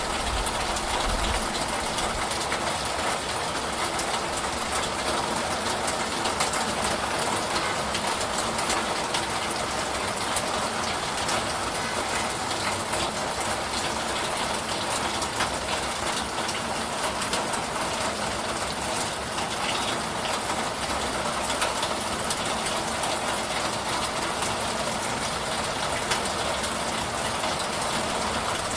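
Steady rain shower: an even hiss with many small drop ticks scattered through it.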